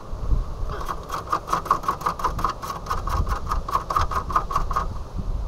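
Ratchet wrench clicking rapidly, about seven clicks a second for some four seconds, then stopping, with low wind rumble on the microphone underneath.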